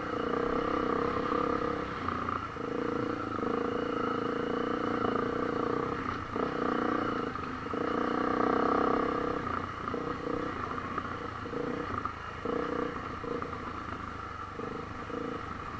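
Honda CRF250L dual-sport motorcycle's 250 cc single-cylinder four-stroke engine running as the bike is ridden. The engine note is steady at first, then breaks up into short on-and-off pulses of throttle through the second half.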